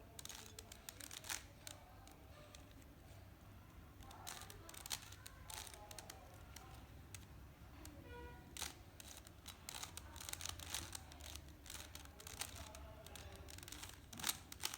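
A plastic 3x3 Rubik's Cube being twisted by hand: faint clicks and rattles in quick clusters as its layers turn.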